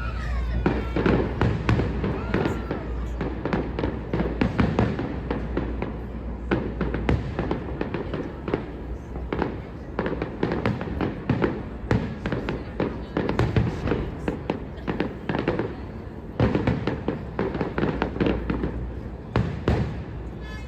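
Fireworks display: a dense, unbroken run of bangs and crackles, some louder reports standing out above the rest.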